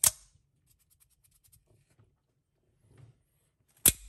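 Hifinder Ultratech out-the-front knife's spring-driven blade snapping as it is cycled with the slider button: two sharp snaps, one at the start and one nearly four seconds later, with faint light ticks in between. The action is being checked after dried factory grease was cleaned from under the button with oil.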